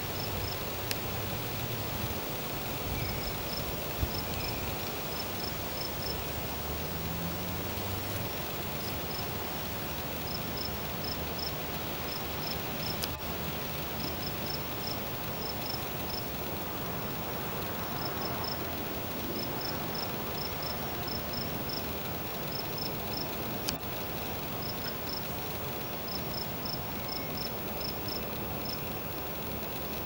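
Insects chirping in short trains of high, quick pulses that repeat every second or two over a steady outdoor hiss. A low hum sits underneath for roughly the first twelve seconds.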